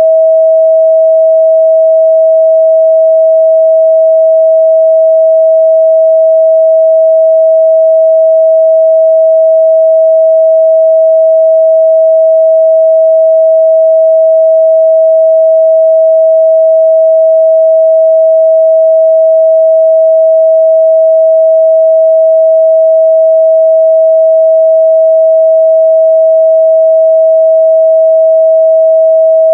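A steady 644 Hz sine-wave test tone, one pure pitch held at a constant loud level.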